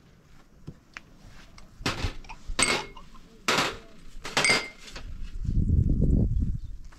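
Small glass tea glasses set down one at a time on a metal tray: four sharp clinks with a brief ringing, about a second apart. Near the end comes about a second and a half of low rumbling noise.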